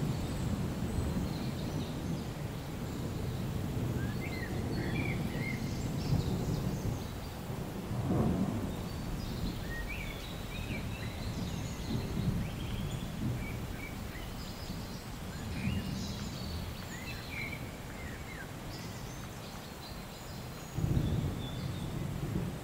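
Outdoor ambience: a steady low rumble that swells about a third of the way in and again near the end, with scattered short bird chirps.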